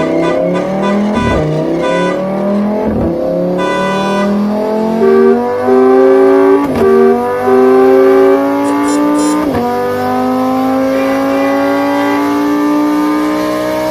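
Car engine accelerating through the gears, its pitch climbing and dropping back at each shift, with a car horn sounding in several blasts about halfway through.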